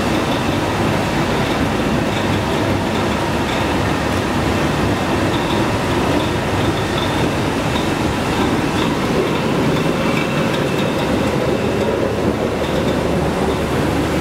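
Gauze bandage bleaching machine running, its electric motor and belt-and-pulley drive turning the rollers. It makes a steady, loud mechanical rumble and rattle with faint high tones over it.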